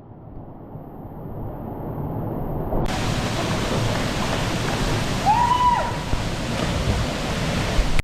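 Steady rushing of a waterfall pouring into a plunge pool. It turns fuller and hissier about three seconds in. A brief high-pitched call rises and falls about five and a half seconds in.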